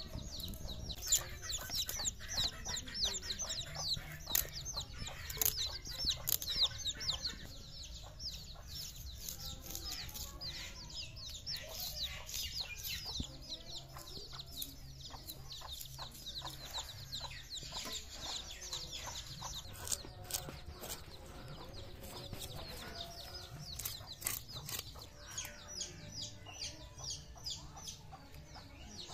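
Domestic chicks peeping: a rapid, steady stream of short, high, falling cheeps that thins out after about twenty seconds.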